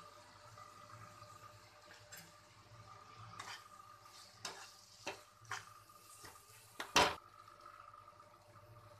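Steel spatula scraping and knocking against a pan while stirring a thick masala: a handful of scrapes a few seconds in, with the loudest knock about seven seconds in. A faint steady hum runs underneath.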